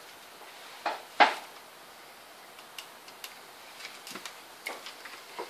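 Plastic LED lamp tubes handled on a tabletop: two sharp knocks about a second in, the second one louder, then scattered light clicks and rustles as a lamp and its charging cable are handled.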